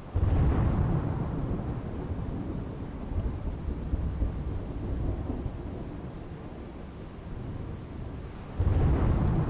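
Thunderstorm sound effect: a thunderclap breaks in at the start and rumbles away slowly over steady rain, and a second clap comes in near the end.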